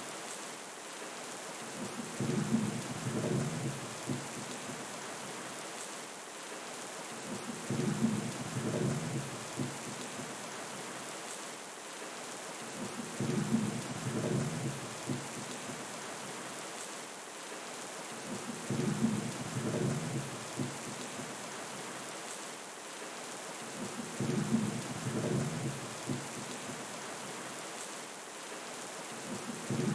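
Steady heavy rain with low rumbles of thunder rolling in about every five and a half seconds, five times.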